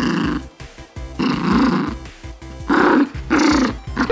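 Mini bichon frise growling at a plush tug toy held in her mouth, in four rough bursts of about half a second each: play growling during tug-of-war.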